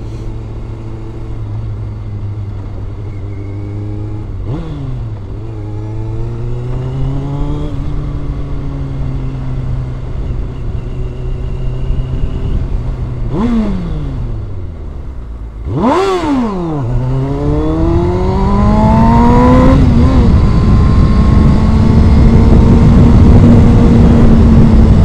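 Kawasaki ZX-6R's inline-four engine riding in traffic: steady running at first, with the pitch dropping and climbing again at several gear changes. About two-thirds of the way through it gives a quick sharp rev, then accelerates up through the gears to a high steady run, with wind rushing over the microphone as speed builds.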